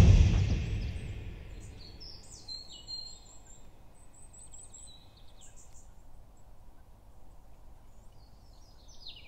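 Birds chirping in short high calls over faint, steady background noise, most busily in the first half and again near the end. The tail of music dies away in the opening second.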